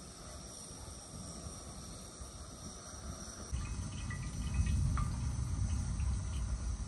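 Insects, crickets among them, chirping steadily in the background. About halfway through a low rumble comes up, and there are a few faint clicks of a spoon against the cooking pan.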